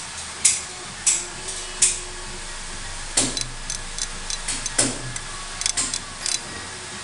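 Sharp metallic clicks and taps from a Grand Power X-Calibur pistol slide being handled and probed with a small screwdriver during disassembly. The clicks come irregularly, sparse at first and then quicker, with two heavier knocks about three and five seconds in.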